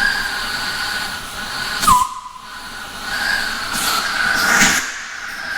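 Oxy-fuel cutting torch flame hissing steadily. About two seconds in there is a sharp pop, then the hiss drops and builds back up.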